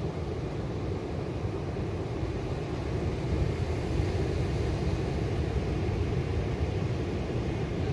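Steady rumbling noise of surf breaking with wind buffeting the microphone.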